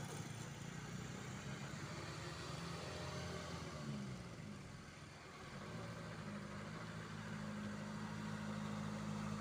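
Engine of a timber-laden truck running faintly and steadily as it approaches. Around four to five seconds in, an engine note falls in pitch and the sound dips briefly. The note then returns and grows gradually.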